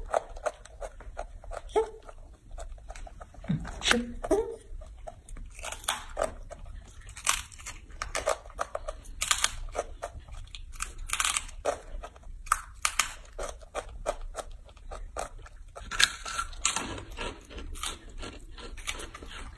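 A young macaque crunching and chewing crisp dried sweet potato sticks and fruit chips, a run of short, sharp, irregular crunches. A brief rising squeak comes about four seconds in.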